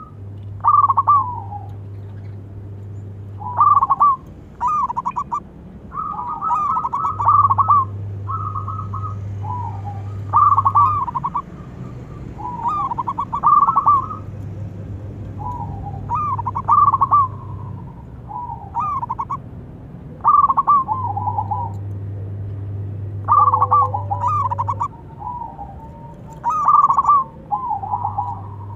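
Zebra dove (local perkutut) singing its rapid, staccato cooing song, phrase after phrase every couple of seconds.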